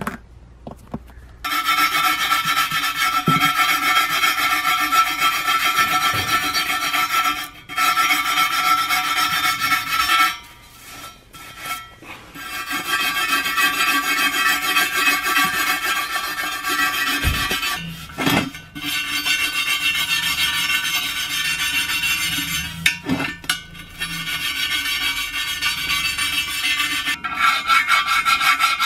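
Rust being scraped off the rim of a bare steel car wheel by hand: a steady, gritty rasping that comes in long strokes, with a few short pauses.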